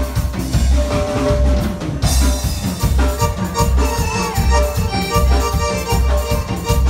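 Loud dance music with a steady bass beat about twice a second under a melody line; the music grows fuller about two seconds in.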